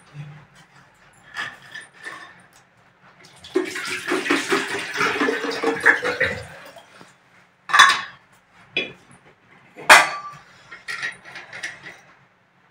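Water pouring into a metal vessel for about three seconds, then a few sharp metallic clicks and clinks, the loudest about ten seconds in, as the lids of an electric kettle and a steel vacuum flask are handled.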